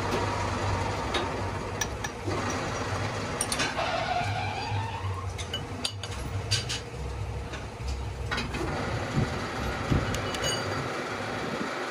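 Workshop machinery running with a steady low hum, with scattered metal clinks and knocks and a brief squeal that rises in pitch about four seconds in.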